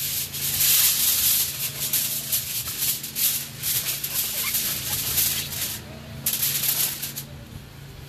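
Aluminium foil crinkling and rustling in irregular bursts as it is folded up around a brisket. A steady low hum runs underneath.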